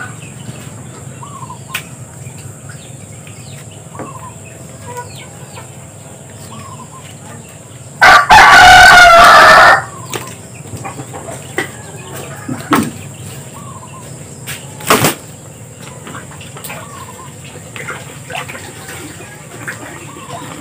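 A rooster crows once, very loud and close, about eight seconds in, for about two seconds. Short soft bird calls come now and then around it.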